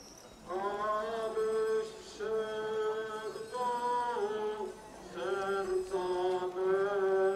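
Voices singing a slow processional hymn for the Corpus Christi procession, in long held notes with short breaks between phrases.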